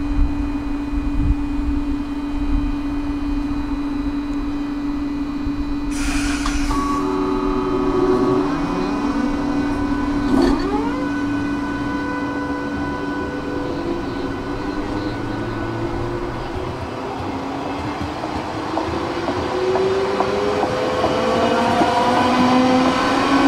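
Roslagsbanan X10p electric commuter train pulling away from a stop: a steady hum while it stands, a hiss of air about six seconds in, then its traction motors whine in steps and rise in pitch as it accelerates, growing louder near the end.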